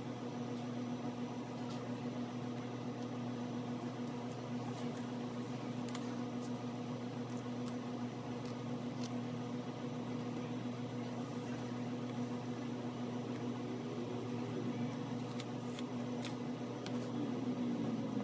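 Steady mechanical hum holding one low tone, with a few faint ticks over it. Soft ambient music fades in near the end.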